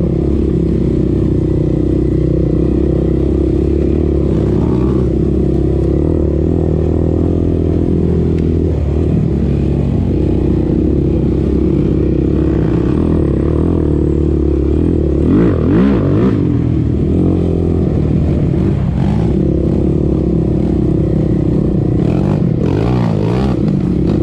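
Sport quad's single-cylinder four-stroke engine running steadily under way, with its pitch rising and falling briefly about two-thirds through and again near the end as the throttle is worked.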